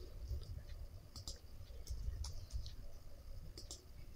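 Irregular keystrokes and clicks on a computer keyboard and mouse, a few sharp taps at a time, as a time is typed into a field. A faint low rumble lies underneath.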